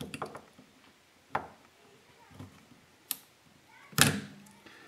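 Sharp metal clicks and clinks as a circlip is worked off a Maico 500 transmission output shaft and its gears. The loudest is a ringing clank about four seconds in.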